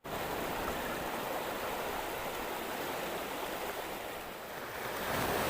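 Steady wash of sea waves on a sandy shore, dipping a little and swelling again near the end.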